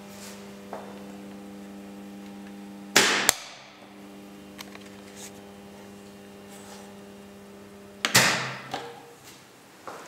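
Steady electrical mains hum from a homemade control panel with a ballast, broken twice by loud, sharp switching clunks about three seconds and eight seconds in. The hum drops after the first clunk and mostly stops after the second, as circuits are switched off.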